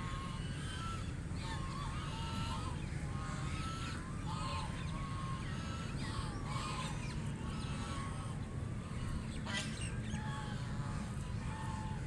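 A group of white domestic ducks quacking repeatedly, short calls following and overlapping one another, over a steady low rumble. A single sharp click is heard about nine and a half seconds in.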